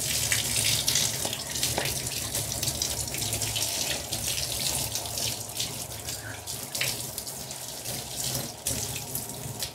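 Bathtub tap running steadily, the stream splashing onto and through the plastic mesh of an air-conditioner filter as it is rinsed.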